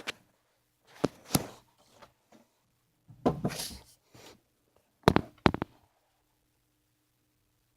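Scattered clunks and knocks with a short rustle in the middle, from heavy vinyl being handled and set up at a sewing machine; the machine is not running.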